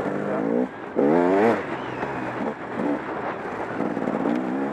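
KTM 300 XC-W's single-cylinder two-stroke engine running on a trail ride with the throttle worked on and off: it dips briefly just before a second in, then revs up and back down sharply, the loudest moment, and runs on with smaller rises and falls in pitch.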